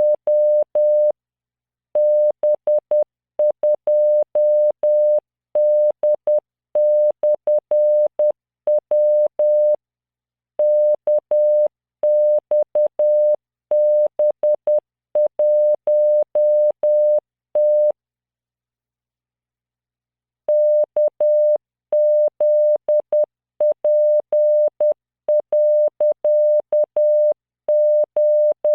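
Morse code practice at 10 words per minute: a computer-generated 600 Hz tone keyed on and off in dots and dashes, sending random five-character groups. The sending pauses for about two seconds a little past the middle.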